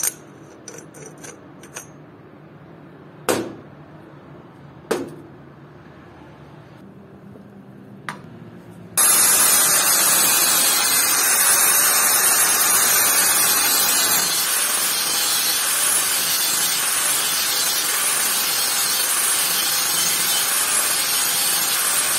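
A few light metal clicks and knocks as cleaned jack parts are handled. Then, about nine seconds in, an angle grinder with a thin cutting disc starts suddenly and cuts grooves into a round steel piece clamped in a vise, a loud, steady grinding that runs on to the end.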